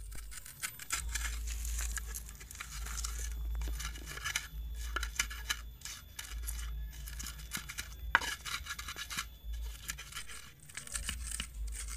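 Stone pestle crushing and grinding shallots, garlic and chillies in an unglazed clay mortar (ulekan and cobek): crunching, gritty scraping of stone on clay with small knocks, and one sharp knock about eight seconds in.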